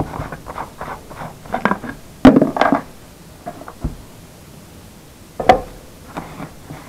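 Plastic jars and tubs of salvaged radio parts handled and set down on a wooden tabletop: a string of knocks and clatters, the loudest about two seconds in and a sharp single knock about five and a half seconds in.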